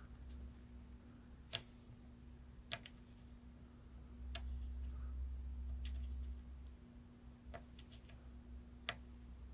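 Scattered light clicks and taps of small hand tools working on the PS5 HDMI port during soldering, about five in all spaced a second or more apart, over a faint steady hum and a brief low rumble in the middle.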